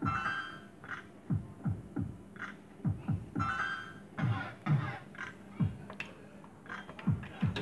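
Lady Luck Around The Clock fruit machine's electronic sound effects during repeated spins. Quick falling-pitch synthesised blips mix with short bright beeping tunes that come again about once a second as the reels spin and stop.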